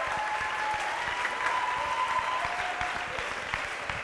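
Audience applauding steadily in a large hall, with a few long drawn-out cheers over the clapping.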